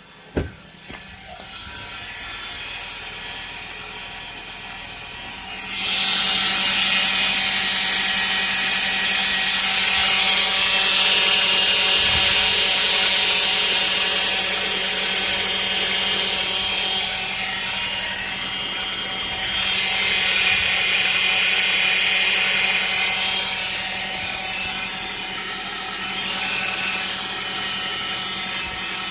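Car's hydraulic power steering pump humming with an engine running underneath. From about six seconds in it turns into a loud high whine that swells and eases in waves. The hum is the sign of power-steering fluid below its proper level.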